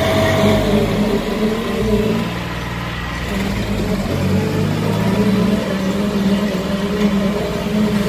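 Two diesel tractor engines, a Swaraj 960 and a John Deere 5050D, running hard under load as they pull against each other on a chain, with a slight dip in level around two to three seconds in.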